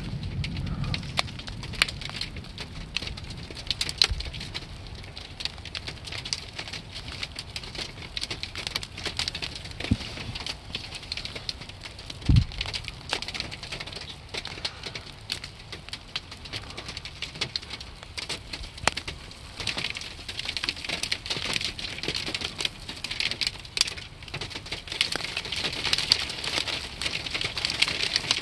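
Graupel (snow pellets) falling, a dense patter of small ticks and crackles that grows thicker toward the end, with one short low thump about twelve seconds in.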